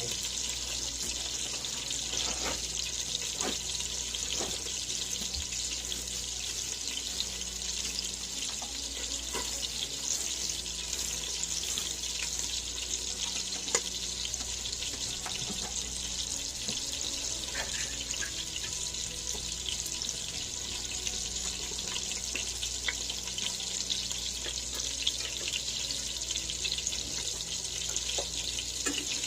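Steady hiss of kitchen cooking noise, with scattered small clicks and knocks.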